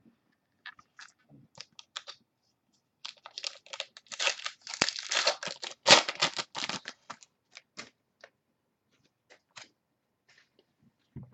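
Trading cards and their plastic packaging being handled: scattered clicks, with a dense stretch of crinkling and rustling in the middle.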